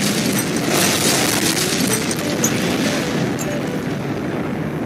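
Explosion sound effect: a loud, dense rumble of a big blast that goes on without a break and slowly fades a little.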